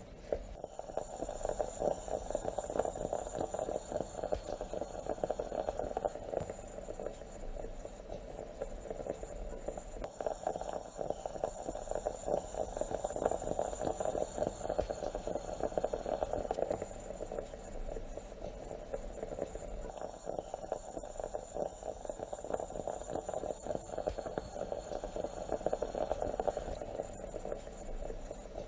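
Stovetop moka pot gurgling and sputtering as the coffee is pushed up into the upper chamber: a steady, dense bubbling crackle that swells and eases slightly.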